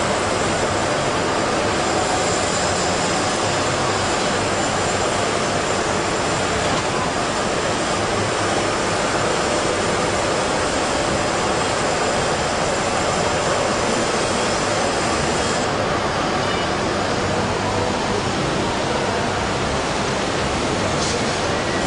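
Steady hum and rush of a vertical hydraulic press's pump unit running. A faint high whine stops about two-thirds of the way through.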